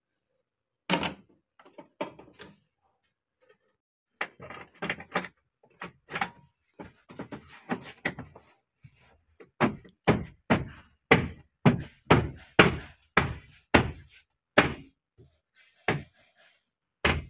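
A series of hollow knocks and thumps on a car's interior trim and body panels, struck by hand. The first few are scattered, then they come quickly and evenly, about two a second.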